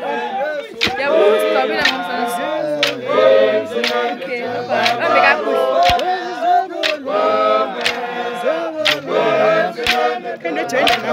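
A group of men singing and chanting a Xhosa traditional song together, many voices overlapping, with sharp knocks scattered through it.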